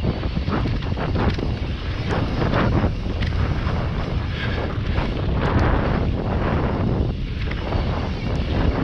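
Wind buffeting the microphone over the tyres of a mountain bike riding fast down a dry dirt trail, a steady loud rumble broken by frequent short rattles and knocks from the bike over bumps.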